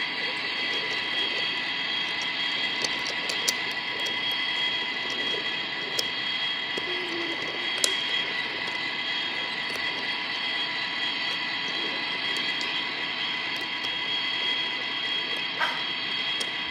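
Wooden toy freight train rolling along wooden track: a steady high whine over an even hiss, with a few light clicks.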